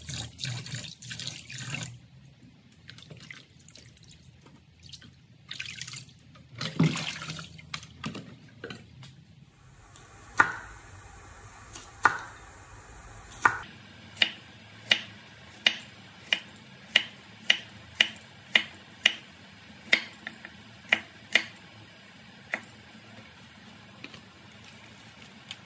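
Tap water running into a plastic basin, splashing as pork bones are rinsed by hand. This gives way to a cleaver chopping carrot on a wooden cutting board: three spaced chops, then a quick run of chops about two a second, stopping a few seconds before the end.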